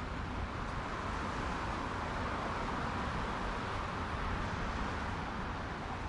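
Road traffic ambience: a steady wash of car and tyre noise, swelling a little through the middle.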